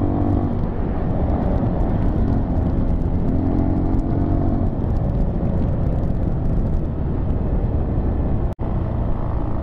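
Dirt bike being ridden at a steady pace: the engine runs under a heavy low rumble of riding noise, its pitch drifting slightly. The sound cuts out for an instant about eight and a half seconds in.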